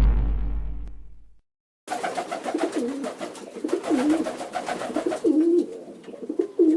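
A deep rumbling intro sound fades out in the first second or so. After a short gap, a domestic pigeon coos over and over, each coo bending down and back up in pitch.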